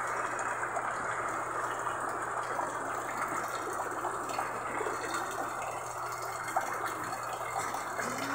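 Heavy rain pouring steadily and splashing onto a wet concrete floor.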